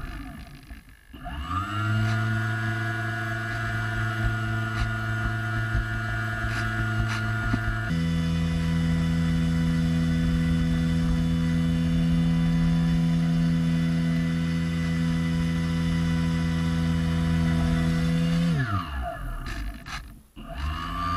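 Model airboat's motor and propeller heard from its own deck. Its pitch falls as the throttle comes off, climbs back to a steady tone, and steps up to a higher steady pitch about eight seconds in. Near the end it falls away again and picks back up.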